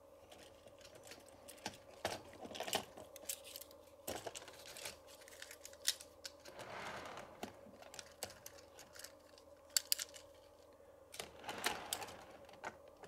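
Scattered light clicks and short rustles from model railway wagons being handled, with a faint steady hum underneath.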